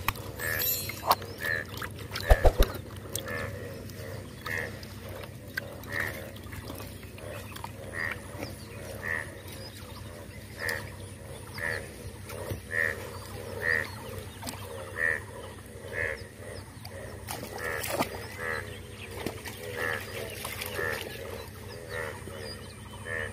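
A chorus of frogs croaking, with a higher call repeating about once a second. A couple of sharp knocks stand out about two and a half seconds in.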